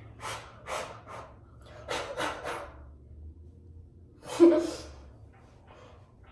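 A person's short, breathy puffs of air, three quick ones and then three more, followed by a louder voiced gasp or snort about four and a half seconds in.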